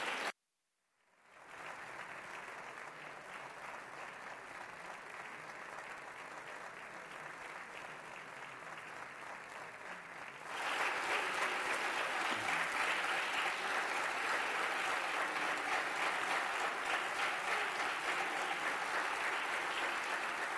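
Deputies applauding: steady clapping that fades in about a second in and gets clearly louder about halfway through.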